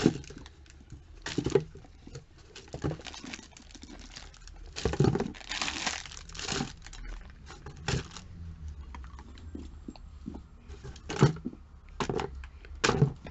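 Cosmetic products and their packaging being handled and put away: crinkling and rustling with irregular knocks and clicks as items are picked up and set down.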